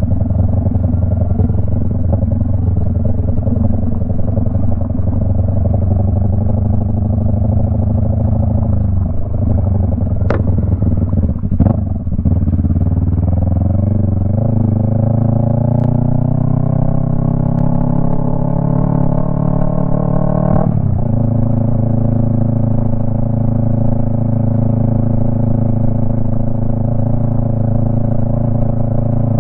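Yamaha MT-03 running through a Jeskap exhaust with its dB killer removed, ridden at a steady pace. About ten seconds in the engine note dips with a couple of sharp clicks, then the revs climb steadily for about eight seconds, drop suddenly, and settle at a steady note again.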